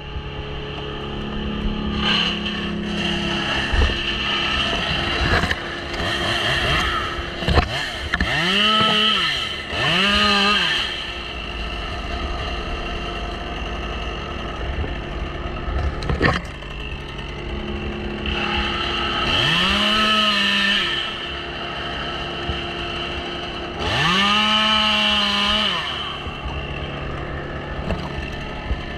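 Two-stroke chainsaw idling, throttled up into a higher-pitched run four times, twice close together about eight seconds in and again near the middle and toward the end, each time dropping back to idle. There is a single sharp knock about halfway through.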